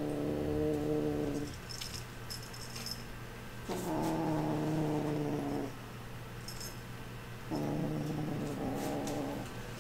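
Lilac lynx Balinese kitten growling over a toy it has grabbed: three low, steady, drawn-out growls, each about two seconds long.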